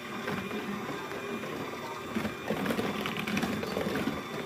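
Electric hand mixer running steadily, its beaters churning through brownie batter as cocoa powder is blended in.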